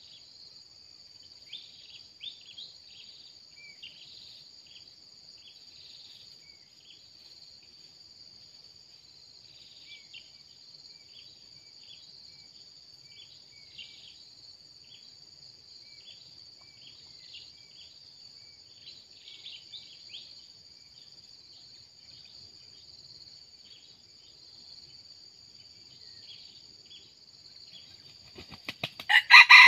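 Steady high-pitched insect drone, cicadas or crickets, with short chirps repeating over it. Near the end a red junglefowl rooster crows loudly.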